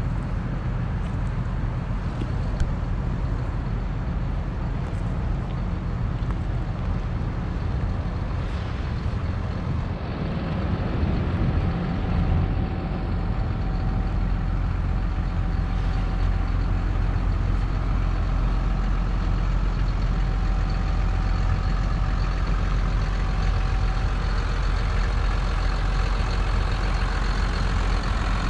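Hino 268 box truck's diesel engine idling steadily.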